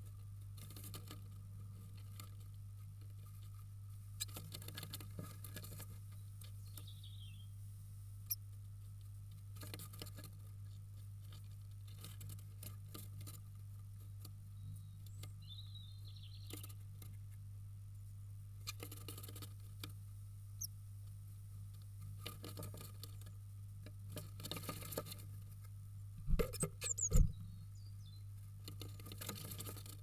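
Eurasian blue tit moving about inside a wooden nest box while building its nest: claws scratching and pattering on the wood, moss rustling and wings fluttering, with a few faint high chirps. The loudest thumps and wing flaps come near the end, over a steady low hum.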